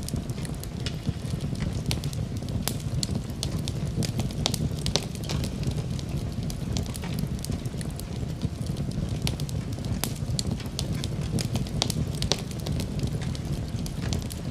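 Wood fire crackling in a fireplace: a steady low roar of flames with frequent sharp, irregular pops and snaps.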